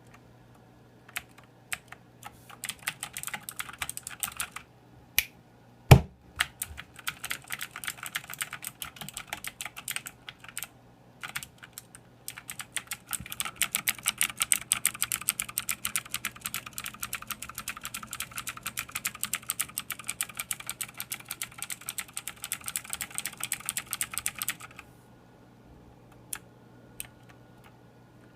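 Typing on a Motospeed CK104 mechanical keyboard. Scattered keystrokes give way about twelve seconds in to fast, continuous typing that lasts about twelve seconds, then scattered keystrokes again. One loud thump about six seconds in.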